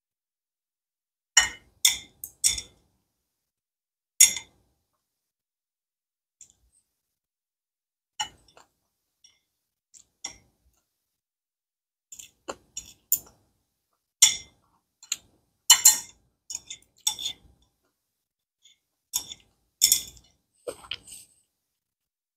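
Eating sounds: short clicks and clinks of chopsticks against a china plate, together with mouth sounds of eating noodles, coming in scattered clusters with silent gaps between.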